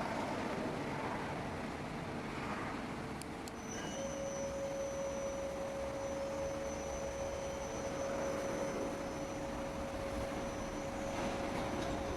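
Mori Seiki SL-3A CNC lathe running with a steady motor whine. A couple of clicks come a little over three seconds in, and then the whine steps up to a higher pitch with a thin high tone joining it.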